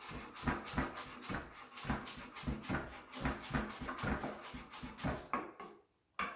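Kitchen knife chopping spring onion on a wooden cutting board, a steady run of about three chops a second that stops near the end.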